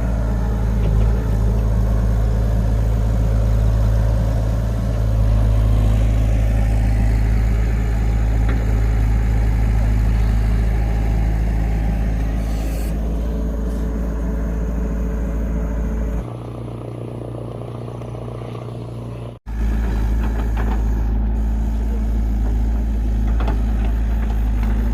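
Steady low rumble of a moving vehicle heard from inside, dropping in level about 16 seconds in and cutting out for a moment about three seconds later before returning.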